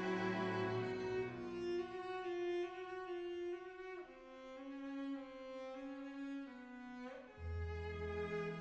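Slow background music of long held bowed-string notes, the pitch shifting every few seconds, with a deeper low note coming in near the end.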